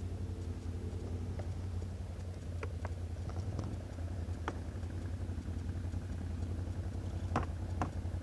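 ATV engines idling steadily, with a low even hum. A few sharp clicks and knocks cut across it; the loudest come a little over seven seconds in.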